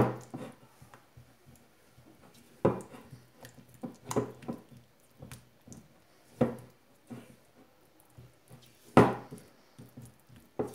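A spatula stirring melted chocolate in a glass bowl, knocking and scraping against the glass at irregular intervals, with the sharpest knock about nine seconds in.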